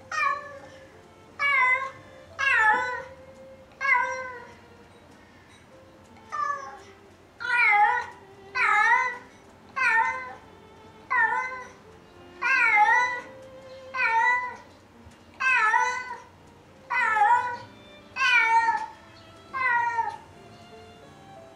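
A cat meowing over and over, about fifteen drawn-out meows roughly one a second, each bending in pitch, with a short gap of a few seconds before the middle run.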